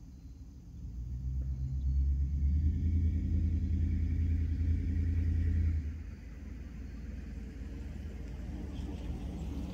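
Mopar 318 V8 in a Dodge A-series van, exhausting through a Flowmaster Delta 50 muffler: a deep, steady exhaust rumble that builds over the first two seconds and holds, then drops back sharply about six seconds in to a lower rumble that slowly grows again.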